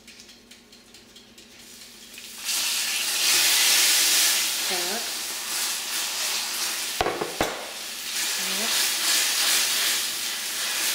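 Water poured into a hot frying pan of melting sugar, setting off a sudden loud sizzle about two and a half seconds in that keeps hissing as the syrup is stirred with a silicone spatula. Two sharp knocks come a little past the middle.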